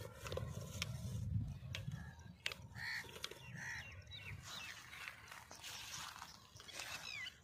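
Birds calling: two short calls about three seconds in, then a run of chirps and whistles. A low rumble sits under the first two seconds.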